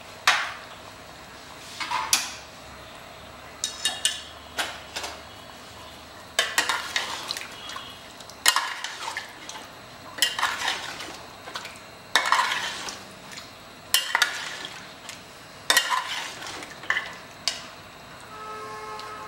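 A long metal spatula stirring a thin mutton curry in a large aluminium pot, scraping and knocking against the pot's sides and bottom in irregular clanks about every second or two.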